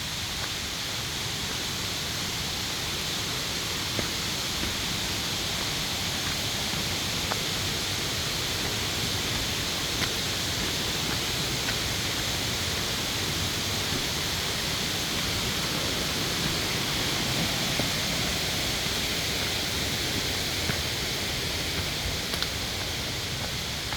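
Steady rushing of a valley stream's running water, even throughout, with a few faint isolated clicks.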